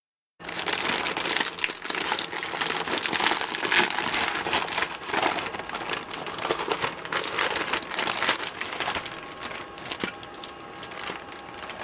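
Packaging crinkling and rustling as the box is opened and its contents handled, a busy run of irregular crackles starting about half a second in and easing off near the end.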